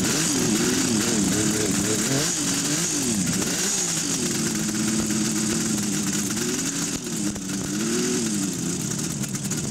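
Classic motorcycle engine running on its stand, revved by hand so its pitch swings up and down several times. It then settles into a steady fast idle, with one more short blip of the throttle near the end.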